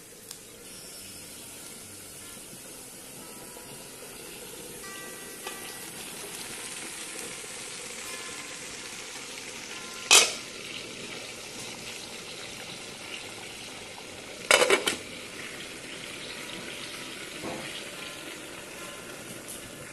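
Beef steaks and corn frying in aluminium pans on a wood-burning stove, a steady sizzle. A sharp metal clank comes about ten seconds in and a quick run of clanks a few seconds later as pots and lids are handled.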